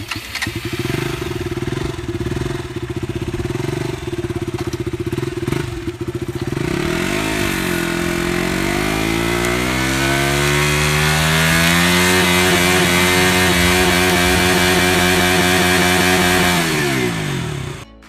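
KTM RC sport bike's single-cylinder engine idling steadily, then revved. About seven seconds in the note dips and starts climbing, rising over several seconds to a high held note, and falls back shortly before the end.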